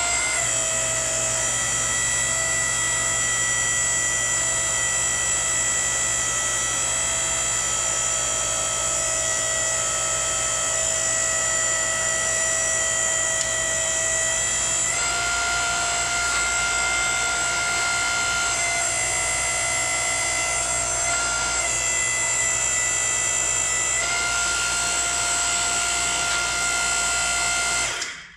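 Hydraulic power unit of a tractor splitting stand running with a steady whine while its control valves are worked to separate the tractor at the bellhousing; the pitch shifts a few times as the load changes, and it stops suddenly near the end.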